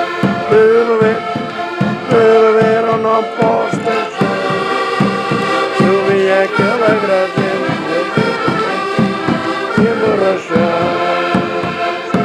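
A band of concertinas (diatonic button accordions) playing a lively Portuguese folk tune in chorus, with a bass drum keeping the beat and voices singing along.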